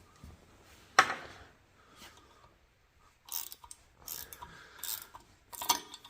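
Ratchet wrench working a nut on a milling machine's lead screw. There is a sharp click about a second in, then short runs of ratcheting clicks about every three-quarters of a second.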